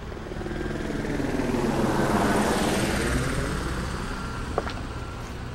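An aircraft passing overhead: it grows louder to a peak about halfway through, then fades. A steady low hum runs underneath, and there is a single sharp click near the end.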